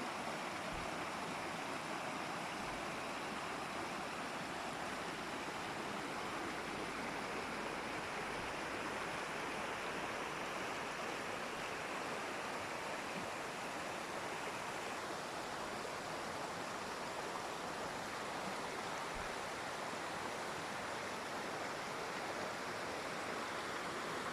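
Waterfall: falling water rushing steadily, an even hiss with no breaks or changes.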